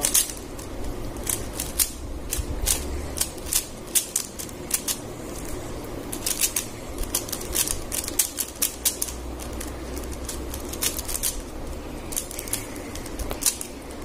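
A plastic 3x3 Rubik's cube being turned quickly by hand during a solve, its layers clicking and clacking in fast, irregular runs.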